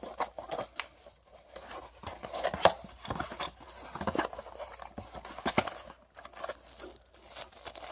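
Unpacking an action camera box by hand: scattered rustling, light clicks and knocks as packaging and plastic accessories are handled and taken out.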